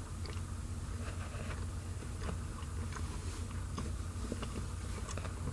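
Faint chewing of a crispy, cracker-like frozen party pizza, with small irregular crunches and mouth clicks over a steady low hum.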